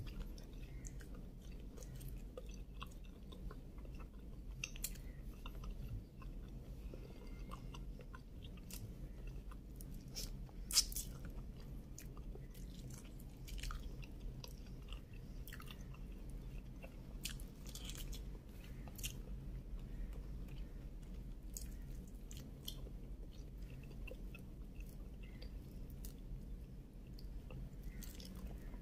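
Close-up eating sounds of cooked shrimp being peeled by hand and chewed: small crackles and clicks of shell and soft chewing, scattered irregularly, with one sharper snap about eleven seconds in. A steady low hum runs underneath.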